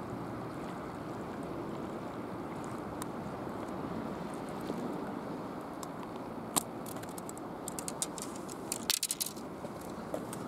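Steady wind and sea noise on a harbour breakwater, with a scatter of sharp taps and clicks in the second half and a quick cluster of louder ones about nine seconds in.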